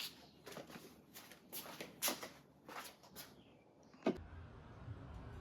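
Faint, scattered knocks and rustles of handling, then a sharp click about four seconds in, after which quiet music begins.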